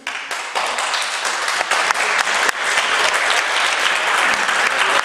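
Audience applauding: a burst of many hands clapping that starts suddenly and keeps going at a steady level.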